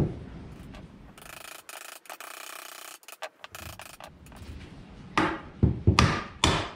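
Scraping and rubbing as a nail-on electrical box is worked against a wooden stud, then a quick run of about six hammer blows, about five seconds in, driving its nails into the wood.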